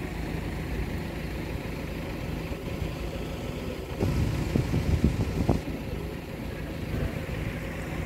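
Steady low rumble of road traffic passing. From about four seconds in there is a louder stretch of low thumps and a few clicks lasting a second and a half.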